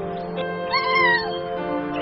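A cat meowing once, a call that rises and then falls in pitch, over background music with held notes.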